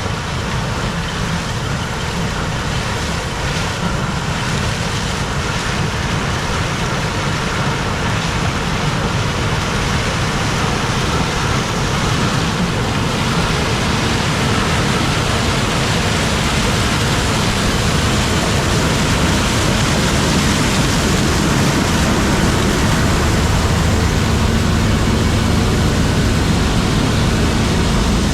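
New Holland CX 5090 combine harvester running steadily while threshing corn, a dense mechanical noise with a low engine hum, growing slowly louder as the machine comes closer.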